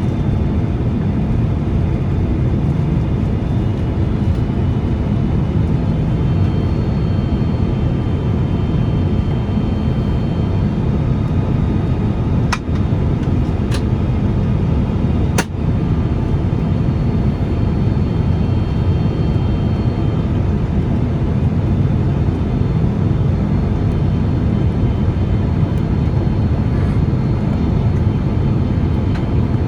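Steady rumble of a Boeing 767's jet engines and airflow heard inside the passenger cabin, with faint high whining tones. There are two brief sharp clicks about twelve and fifteen seconds in.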